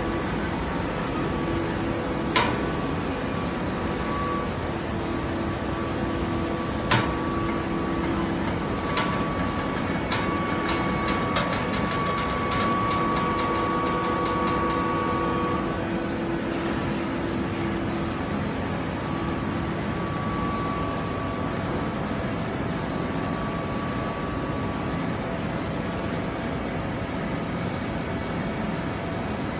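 Horizontal fibre baler running with a steady mechanical hum. Two sharp knocks come about 2 and 7 seconds in, and a run of rapid clicks follows between about 9 and 16 seconds.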